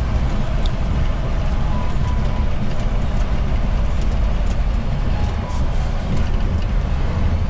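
Diesel tractor-trailer truck driving on the highway, heard from inside the cab: a steady, loud low engine and road rumble.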